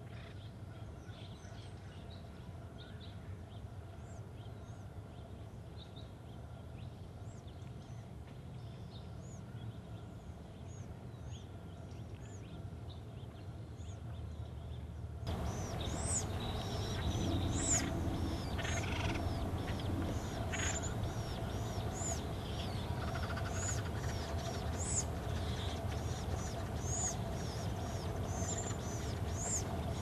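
Wild birds calling, mostly short, high, repeated chirps from several birds, over a steady low rumble. About halfway through the whole sound abruptly gets louder, and the chirps come thicker and stronger.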